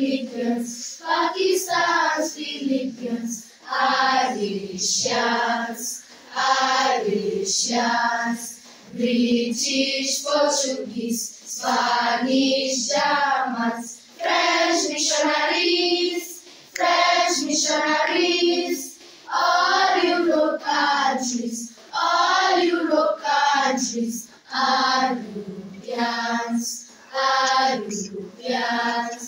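Unaccompanied singing voices in short phrases of a second or two, with brief pauses between them.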